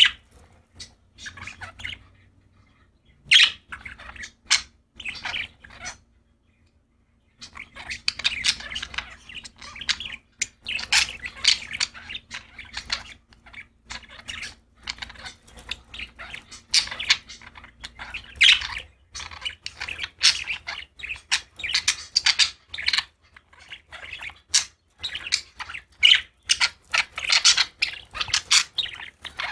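Pet budgerigars chirping and chattering in quick, irregular bursts, with a short pause about six seconds in.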